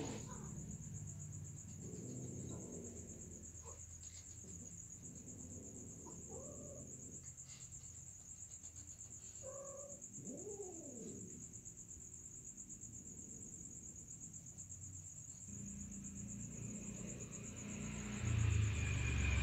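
Steady high cricket trill under a few short domestic cat meows, one of them a drawn-out yowl that rises and falls about ten seconds in. A low rumble comes in near the end.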